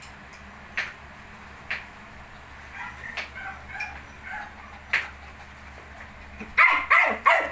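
19-day-old puppies whimpering and squeaking in short, high cries, ending in a louder run of several whining yelps near the end.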